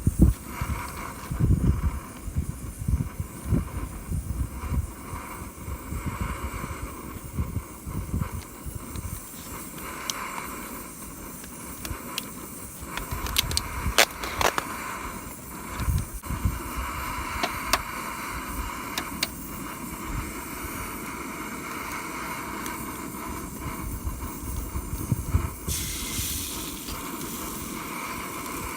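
Strong gusty wind buffeting the microphone, with a few sharp clicks about halfway through.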